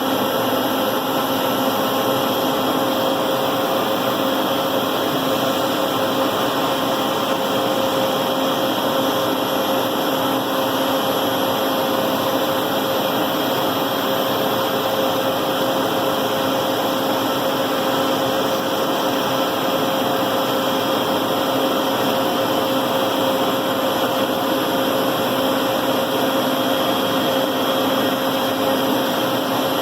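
CNC router spindle cutting Alucobond aluminium composite panel: a steady machine whine over a constant hiss.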